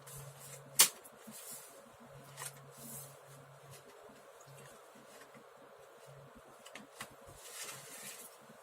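A few sharp clicks and small taps from handling a laptop's plastic case during disassembly, the loudest a little under a second in, over a low hum that comes and goes.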